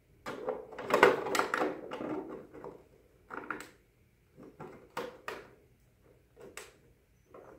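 Thin plastic helmet pieces being handled and pressed into line: irregular rubbing, creaking and clicking plastic, busiest about a second in, then sparser clicks and scrapes.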